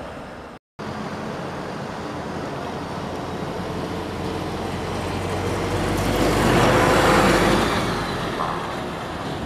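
Boeing 737's twin jet engines at takeoff power: a broad, steady roar that builds to a peak about seven seconds in and then eases off. The sound breaks off briefly under a second in.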